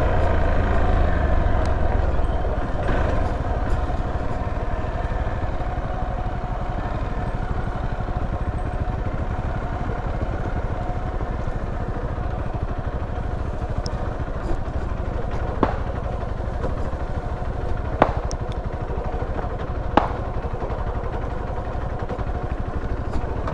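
Hero XPulse single-cylinder motorcycle running steadily while riding off-road on knobby tyres. Three sharp knocks break through in the last third.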